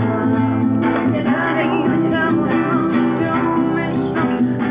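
Acoustic guitar strummed, chords ringing on, with a voice singing along from about a second in.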